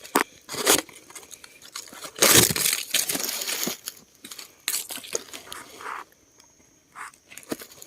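Irregular crunching, rustling and scraping of dry leaves and soil being handled or dug into, with a longer, louder rustle about two seconds in.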